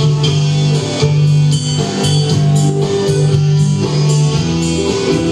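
Live band playing, guitar to the fore over bass and drums.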